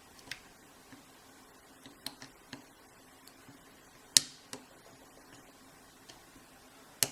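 Scattered small metal clicks of a lock pick and tension wrench working the pin stack of a Brinks Commercial laminated padlock during single-pin picking, with a sharper click about four seconds in and another near the end, as pins are pushed up and set.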